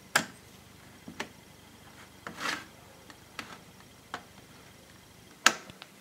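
Sharp plastic clicks and snaps from an MSI gaming laptop's bottom base panel as it is pried loose from the body and its clips let go. There are about seven separate clicks, the loudest right at the start and another about five and a half seconds in, with a brief scrape about two and a half seconds in.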